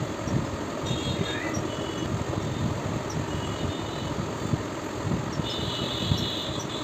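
Close-up chewing and mouth sounds of a person eating a mouthful of food, a run of soft irregular crunches and smacks.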